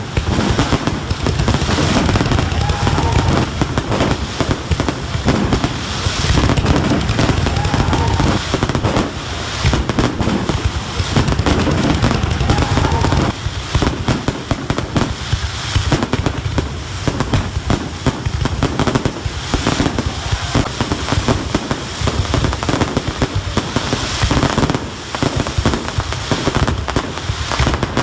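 A fireworks display: a dense, continuous barrage of bangs and crackling from bursting fireworks. The deep booms ease off about halfway through, while the crackling goes on.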